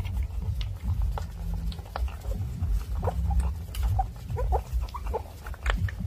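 A litter of puppies suckling at their mother's teats: continuous wet sucking and smacking, with short high squeaks and small grunts, most of them in the second half.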